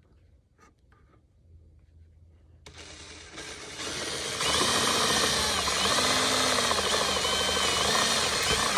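Electric drill boring holes for the console parts. It starts about three seconds in, gets louder and runs at full speed with its motor whine wavering up and down, then stops just before the end.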